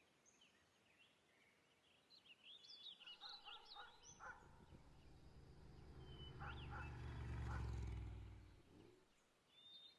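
Near silence, with faint bird chirps about three to four seconds in, then a low drone that swells and fades between about six and eight and a half seconds.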